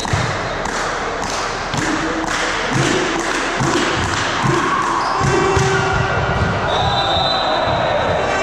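Ball bouncing repeatedly on a wooden sports-hall floor, about two to three bounces a second for the first five seconds or so, with players' voices and calls echoing in the big hall.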